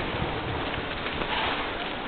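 Steady rushing noise of wind and movement from a moving mountain bike.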